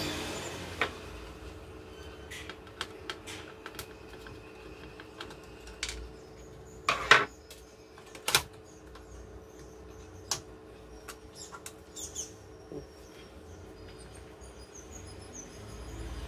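Hands working the power supply board free of an HP LaserJet 1020 Plus printer's chassis and lifting it out: scattered small clicks and knocks of plastic and metal parts, the two loudest about seven and eight seconds in.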